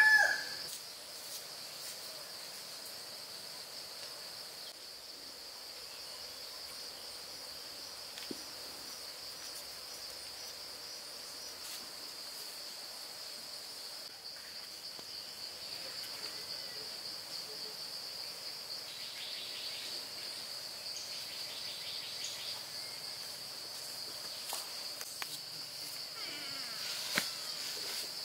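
Steady high-pitched drone of an insect chorus, with a few faint knocks and taps, the sharpest near the end.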